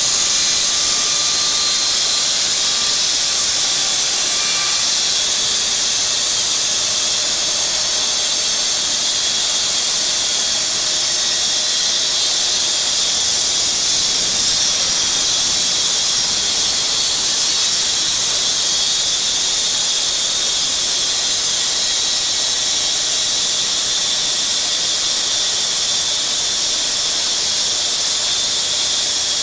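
Lynx EA bandsaw mill sawing through a log, with its debarker running ahead of the band blade. The noise is a loud, steady hiss, with a faint whine that dies away about five seconds in.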